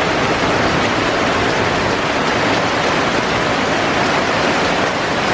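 Heavy rain pouring steadily onto palm fronds and trees, a loud, even hiss.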